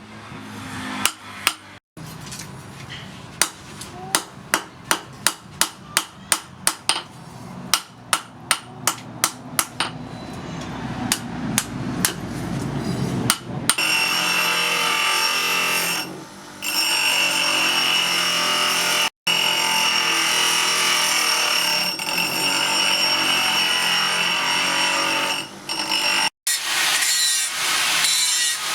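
Hand hammer striking steel on an anvil in a steady rhythm of about two blows a second, forging the spring-steel machete blade, over a low hum that rises. About halfway through this gives way to a steady high grinding noise of a power grinder working the steel.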